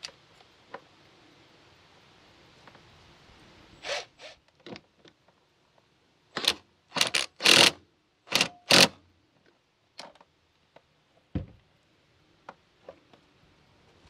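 Cordless driver run in short bursts, about nine of them between four and nine seconds in, tightening a hose clamp on plastic tubing over a barbed fitting. A single thump follows a couple of seconds later.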